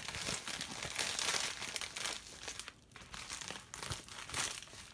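Packing material rustling and crinkling as a shipping box is searched through by hand, with a short lull just under three seconds in.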